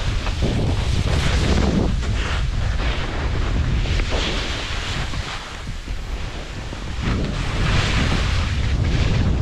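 Wind buffeting an action camera's microphone on a fast ski descent, mixed with the hiss and scrape of skis through chopped-up snow. The rushing noise swells on each turn, eases off for a couple of seconds in the middle, then builds again.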